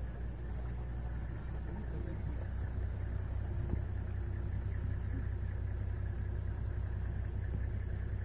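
A safari vehicle's engine idling steadily, a low even running sound.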